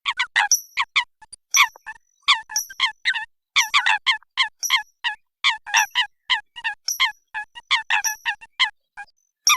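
Eurasian coots calling: a rapid, irregular series of short, sharp nasal notes, several a second, with occasional brief thin high-pitched tones among them.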